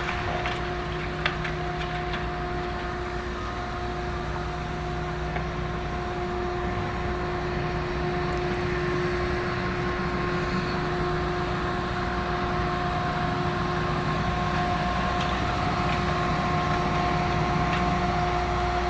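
Steady machine hum holding one constant pitch, over a low rumble of engines.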